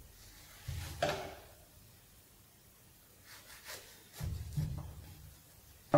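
Serrated knife working on a crisp millefeuille with flaky puff-pastry layers: a short scrape about a second in, then faint crackles from the brittle pastry as the blade is set on it to cut.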